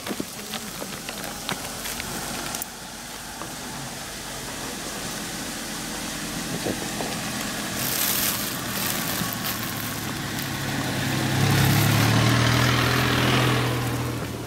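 A motor engine running nearby: a low hum that grows louder through the second half, peaks a few seconds before the end, then eases off.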